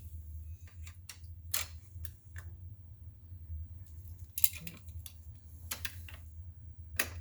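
Irregular light clicks and knocks, about nine spread unevenly, from the lathe chuck and its Evapo-Rust bucket being handled as the chuck is lifted out of the soak. A steady low hum runs underneath.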